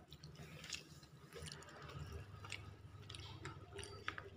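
Faint eating sounds: fingers squishing and gathering rice on a paper food wrapping, with chewing and scattered small clicks, the sharpest about four seconds in.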